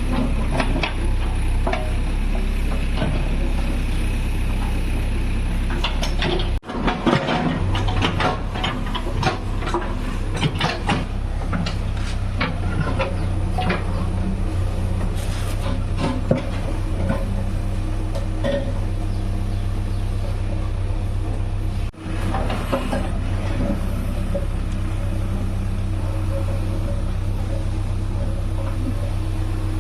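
JCB 3DX backhoe loader's diesel engine running steadily under load, with repeated metallic clanks and rattles from the bucket and arms, busiest in the middle stretch.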